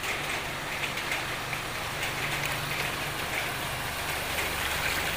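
Pickup truck driving slowly through shallow floodwater: its tyres swish and slosh the water over a low engine hum.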